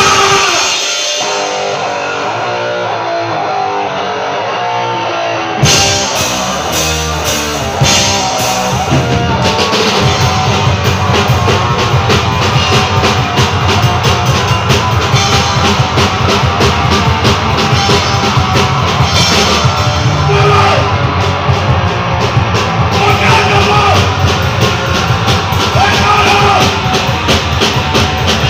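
Live punk rock band playing loud. For the first five seconds or so only electric guitar is heard; then drums and bass come in and the full band plays on.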